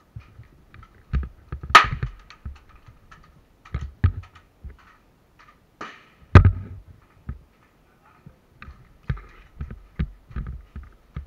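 Scattered sharp knocks and thumps at irregular intervals, the two loudest about two seconds and six seconds in.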